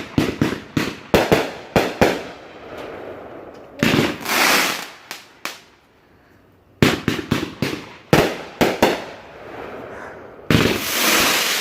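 Consumer fireworks going off in volleys: quick series of sharp bangs, broken by longer stretches of dense crackling about four seconds in and again near the end.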